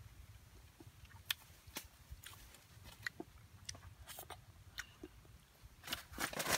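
Eating with bamboo chopsticks from a clay bowl: scattered small clicks and chewing sounds, with a busier run of clicks near the end.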